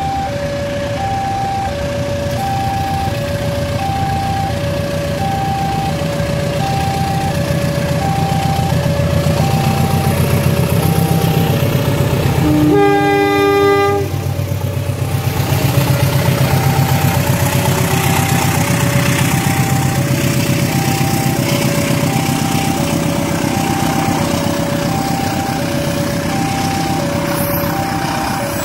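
KAI CC 206 diesel-electric locomotive hauling a long-distance passenger train past, its engine drone building as it nears, with a short two-note horn blast about halfway through. A level-crossing alarm alternates two tones about once a second throughout.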